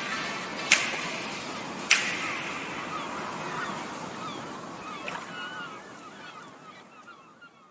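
Closing sound bed fading out. Two sharp snaps, about 1.2 seconds apart, come over a noisy wash with short chirping calls, and the whole thing dies away steadily.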